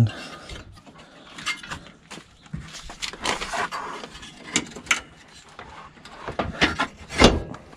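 Front lip spoiler and its brackets being slid and pushed into place against a car's front bumper: scattered scrapes, clicks and knocks, with the loudest knock near the end.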